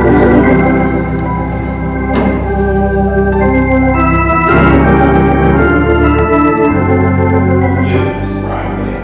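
Organ playing slow sustained chords, moving to a new chord every two to four seconds.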